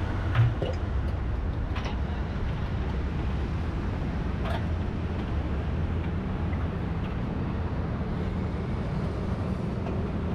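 Steady roadside traffic noise: vehicles running past on a busy road, with a few faint short clicks.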